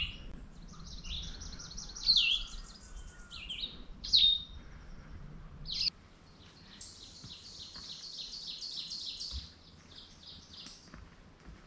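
Songbirds singing: high, rapid trills and several sharp downward-slurred chirps, the loudest about two and four seconds in, then a long even trill from about seven to eleven seconds.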